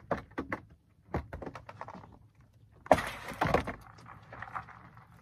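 Clicking, knocking and clattering of fishing gear being handled on a boat deck, with a brief louder rush of noise about three seconds in.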